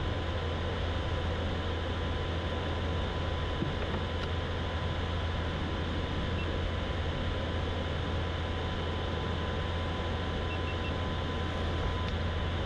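Steady low rumble with an even hiss and a faint, steady high tone running through it.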